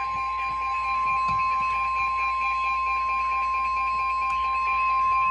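NOAA Weather Radio warning alarm tone: one steady, unbroken high-pitched tone near 1 kHz, the alert signal that precedes a broadcast warning message. Fainter pulsing tones run underneath.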